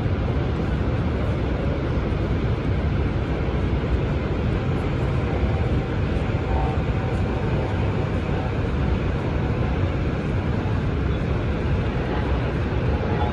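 Niagara Falls' steady roar of falling water heard across the gorge, a low, even rushing noise that never lets up.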